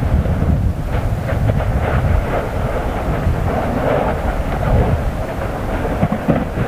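Fagradalsfjall eruption vent fountaining lava: a loud, continuous low rumble with short crackling bursts as gas blasts spatter out of the cone.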